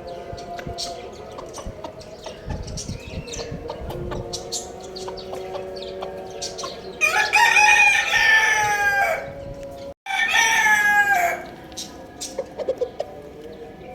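Rooster crowing: a long crow about halfway through, then a second, shorter one right after a brief dropout, each ending on a falling note. Small high chirps run underneath, from chicks or small birds.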